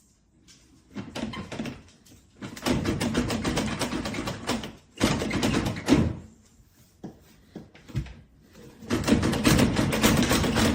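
Several bursts of clattering and knocking, each one to two seconds long, with short quiet gaps between them.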